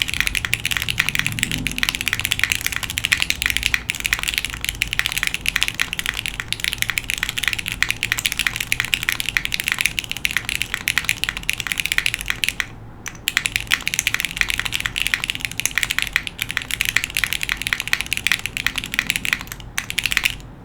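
Fast continuous typing on a SingaKBD Kohaku gasket-mount mechanical keyboard: lubed Cherry MX Hyperglide Red linear switches with 62g springs, an aluminium leaf-spring plate and GMK keycaps. Dense, rapid key strikes, with a brief pause a little past halfway, stopping just before the end.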